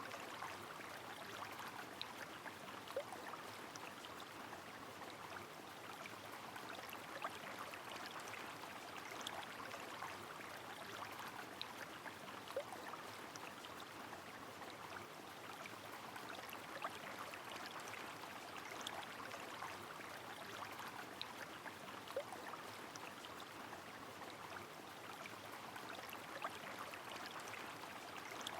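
Steady rush of flowing river water mixed with falling rain, with scattered sharp drop ticks and a few short water plinks.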